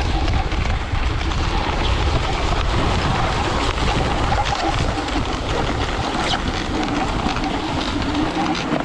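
Dog sled runners sliding over packed snow, a steady scraping rumble, with wind buffeting the microphone.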